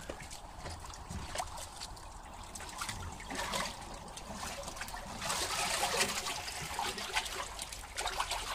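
Water sloshing and splashing in a fish-holding tank as gloved hands grab a mirror carp and lift it out, with water trickling; the splashing is loudest a little past the middle.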